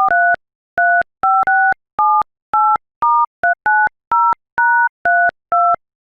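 Touch-tone telephone keypad dialing: a quick run of about fourteen short two-note DTMF beeps with brief gaps between them, keying in an account number and PIN.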